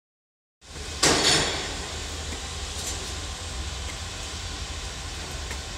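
Heavy machinery at work: a sudden loud burst about a second in, then a steady low rumble with a hiss over it.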